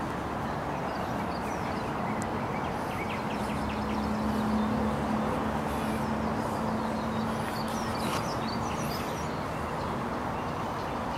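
Steady outdoor background noise with a low hum that grows louder in the middle and then fades, and faint bird calls chirping over it.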